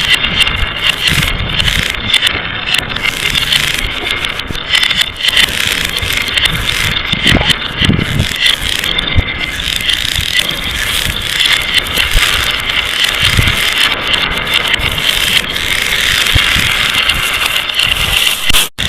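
Many glass marbles rolling and clattering down a marble run: a steady rattle full of small clicks and knocks. It breaks off for an instant just before the end.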